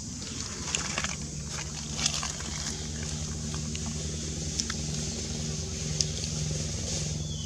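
A steady low motor hum, like an engine running at a constant speed, with a few faint scattered clicks and a short high falling tone near the end.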